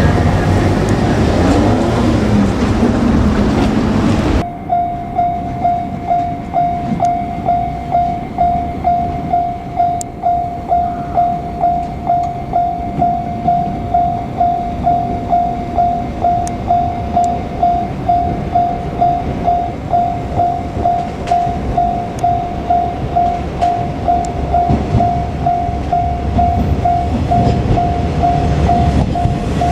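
A train running close past for the first few seconds. Then, after a sudden change, a Japanese level-crossing warning bell rings: one electronic tone struck over and over at an even, quick pace, over the low rumble of a train, which grows louder near the end as it approaches the crossing.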